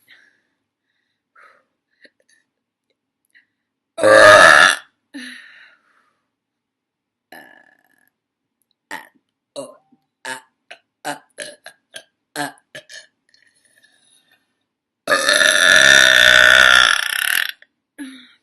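A woman burping: a short, loud burp about four seconds in, a quick run of about a dozen short, quieter sounds a few seconds later, then one long, loud burp of nearly three seconds near the end.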